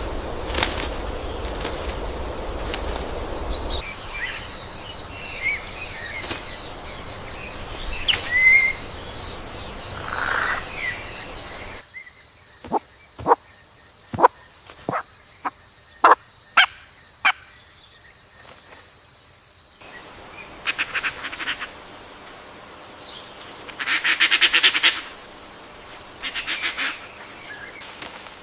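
Bird calls and chirps over a forest background. The track changes abruptly twice: first to a run of sharp single clicks about a second apart, then to harsh, raspy calls in short clusters near the end.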